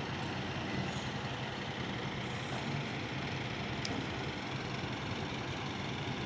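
An engine idling steadily, a low even hum with background noise.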